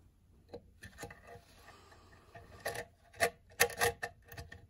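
Scrapes and sharp plastic-and-metal clicks as a green DB37 breakout terminal board is pushed onto the 37-pin D-sub main port of a CNC motion controller. The loudest clicks come in a cluster about three to four seconds in.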